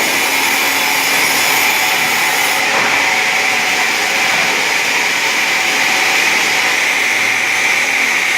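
Automatic wood-sawing machine running: a loud, steady, hissing machine noise. The highest hiss drops away a little under three seconds in.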